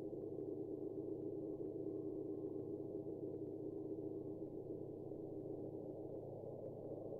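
Steady electronic drone: a dense bed of held low and middle tones, with nothing high in it, that does not change.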